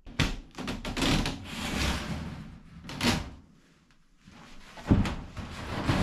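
Metal wire mesh being unrolled and handled on a wooden plank floor: rustling, scraping clatter with a few sharp knocks, and a short pause a little past the middle.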